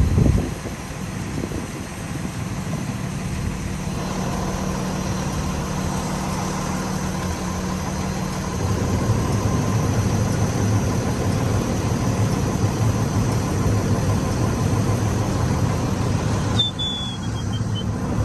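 Car engine idling steadily, getting a little louder about halfway through, with a brief high falling chirp near the end.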